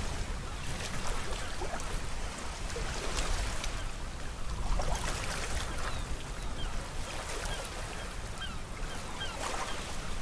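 Sea waves washing in a steady rush with a low rumble, with short bird calls over them, most of them in the second half.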